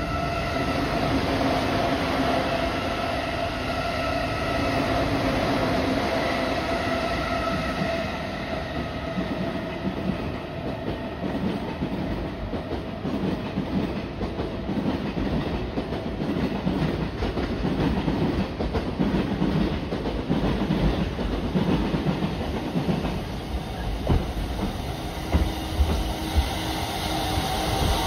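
JR East FV-E991 'HYBARI' hydrogen fuel-cell hybrid train approaching and running past, with a steady whine over the first eight seconds or so. Its wheels then clatter over the points and rail joints, with a few sharper knocks near the end.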